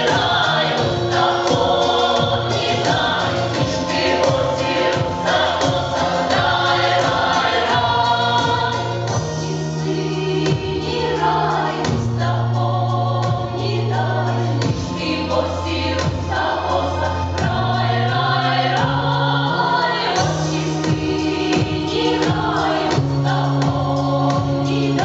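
Mixed folk vocal ensemble of women and men singing a Ukrainian folk song in several parts, over instrumental backing with steady low bass notes and light percussion.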